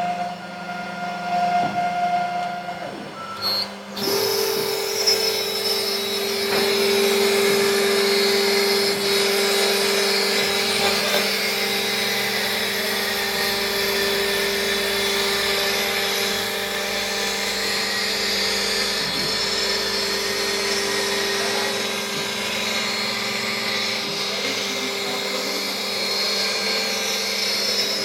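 CNC router spindle running with a steady whine and the hiss of the bit cutting. About four seconds in, the sound changes abruptly to a louder, lower steady whine with much more hiss.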